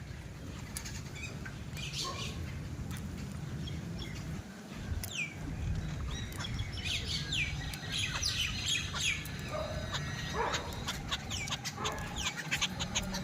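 Small birds chirping in short, quick, falling calls, busier in the second half, over a steady low rumble.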